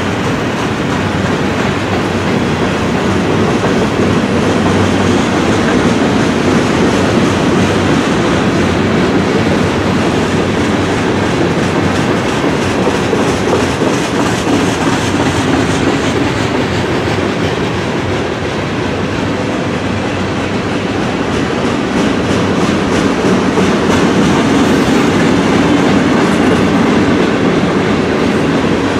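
Freight cars of a mixed freight train (covered hoppers and boxcars) rolling past close by, steel wheels rumbling and clacking on the rails, steady and loud throughout.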